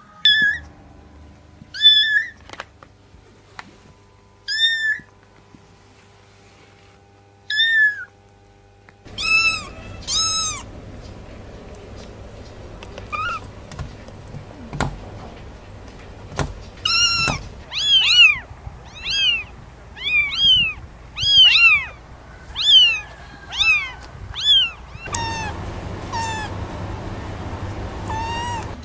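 Young kittens meowing: short, high-pitched mews. Single mews come a couple of seconds apart at first, then more often, with a quick run of about ten in a row in the latter part.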